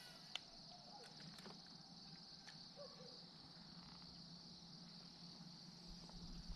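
Near silence with a faint, steady high-pitched trill of crickets and a few faint ticks.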